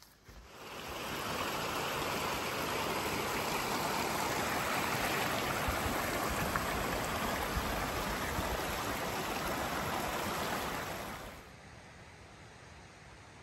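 Shallow, rocky mountain stream running over stones in a small riffle: a steady, even wash of moving water. It fades in within the first second and drops away sharply near the end, leaving only faint outdoor quiet.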